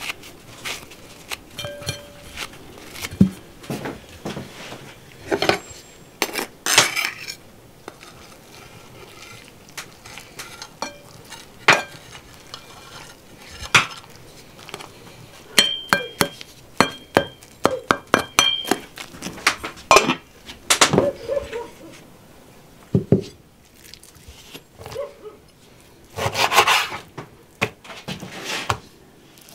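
Kitchen handling sounds: scattered clinks and knocks of a metal bowl, enamel mug and kitchen knife being set down and handled, with a run of ringing metal taps about halfway through and a short scrape near the end.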